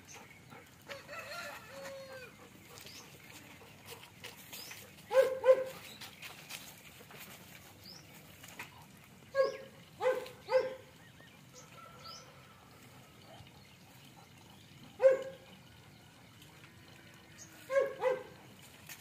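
Doberman giving short, sharp yelping cries, singly and in pairs, several times over, while the dogs are tied in mating. Faint bird chirps are in the background.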